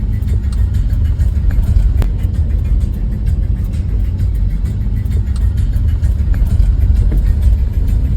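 Car driving, heard from inside the cabin: a steady low rumble of engine and road noise, with a few light knocks.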